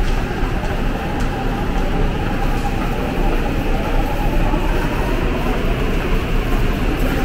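Subway train running, a loud, steady rumble with no breaks.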